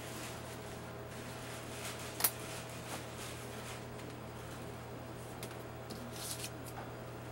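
Steady low room hum with faint scattered clicks, and one sharp click about two seconds in.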